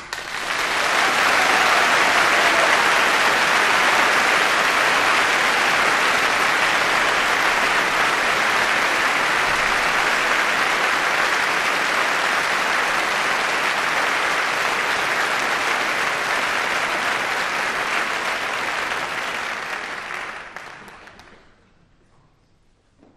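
Opera house audience applauding steadily, dying away near the end.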